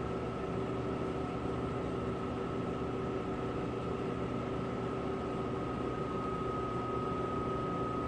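Steady machine hum and hiss, as of a fan or ventilation running, with a thin, high, steady whine on top.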